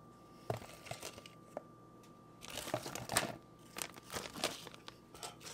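A few light taps on the counter, then plastic packaging crinkling and rustling as a bag is handled, from about halfway through.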